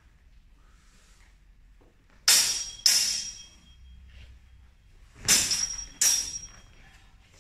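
Longsword blades clashing in sparring: two quick clashes, then two more about three seconds later, each strike ringing briefly.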